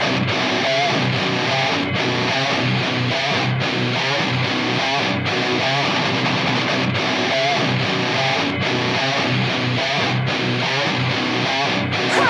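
Music: an electric guitar riff repeating in a steady rhythm, with short breaks about every second and a half.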